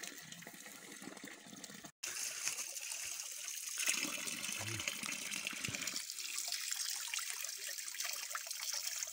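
A steady stream of water pouring from a pipe and splashing onto rock and into a shallow pool, while fish are rinsed in it. It is quieter for about the first two seconds, then much louder.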